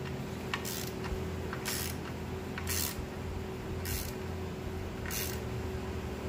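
Ratchet speed wrench clicking in short bursts about once a second while it tightens the bolts that pull a clutch pressure plate down onto its flywheel, over a steady low hum.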